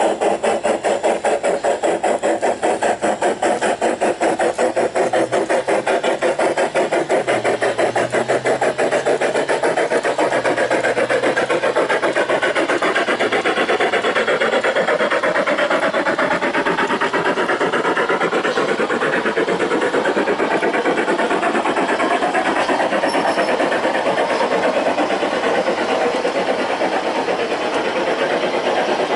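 USA Trains die-cast 4-6-4 Hudson model steam locomotive and its long string of freight cars running past on outdoor garden-railway track. A fast, regular beat at first gives way to a continuous rolling clatter of wheels on rail as the cars go by.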